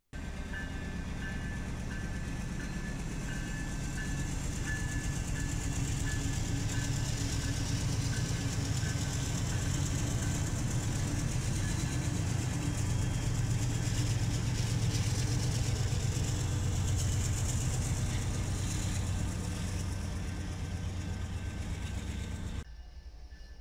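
Diesel freight locomotives passing close by under power: a steady, loud low engine rumble mixed with the noise of wheels on rail, with a thin high tone coming and going in the first half. It cuts off abruptly near the end.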